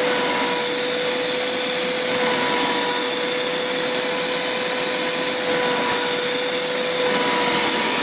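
Hoover Power Scrub Deluxe carpet cleaner running with its upholstery tool, the suction motor giving a steady rushing noise with a constant whine, drawing water back up out of the couch fabric.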